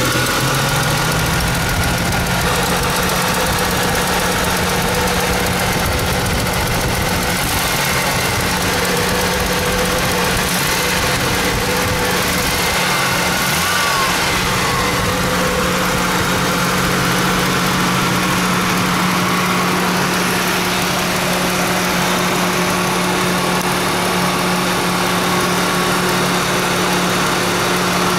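Ford Mustang engine idling steadily with a rapid, even ticking over the hum, which the owner takes for lifter tick; thicker oil and Sea Foam have not cured it.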